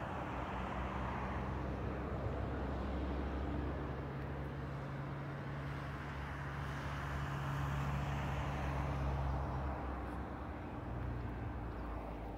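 Distant jet engines of a Boeing 737-400 on final approach: a steady low rumble with a faint hum underneath, swelling slightly toward the middle.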